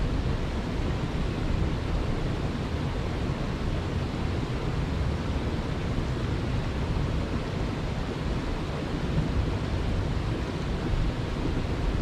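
Steady rush of a shallow river flowing over rocks, with a low, uneven rumble underneath.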